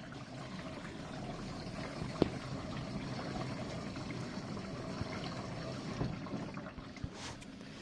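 GE dishwasher in its final rinse: water spraying and sloshing steadily inside the tub, with a sharp click about two seconds in. The water sound eases off near the end.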